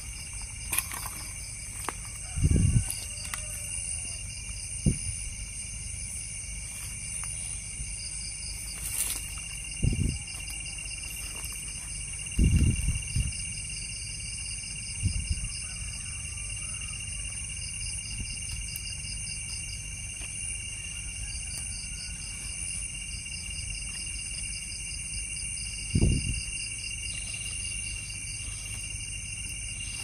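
Night insect chorus: several steady shrill trills at different pitches, one of them pulsing rapidly. A few dull low thumps, louder than the chorus, come and go.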